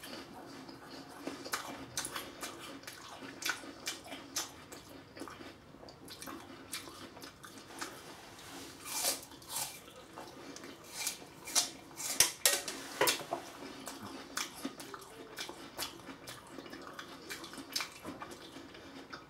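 Irregular light clicks and knocks, a few per second, over a steady low hum, with a louder cluster about halfway through.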